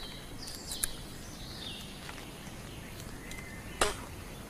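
Teeth biting and scraping at the end of a green wooden stick to sharpen it into a spear point, with small clicks and one sharp crack near the end. A bird calls faintly in the background with a few falling notes.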